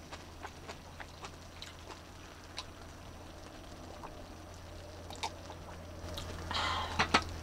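Tableware clicking and tapping lightly and irregularly against a cast-iron griddle pan and a wooden plate while eating, over a low steady hum. Near the end comes a short rustling burst, then two sharper clicks.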